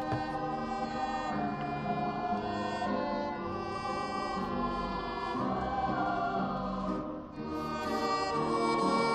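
Background music of a choir singing slow, held chords; it dips briefly about seven seconds in, then swells louder.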